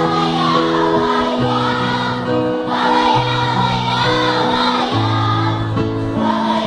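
Choir singing, its voices gliding over long held low notes that step to a new pitch every second or so.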